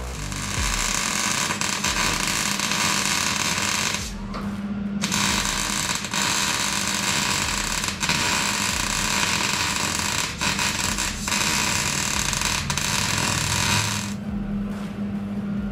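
Angle grinder working steel: a harsh grinding noise in two long passes with a short break about four seconds in. The motor runs free with a steady hum near the end.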